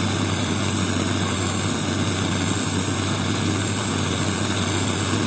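Blowtorch flame burning steadily, an even rushing noise that does not change, as it heats small flux-coated copper plates up to soldering temperature.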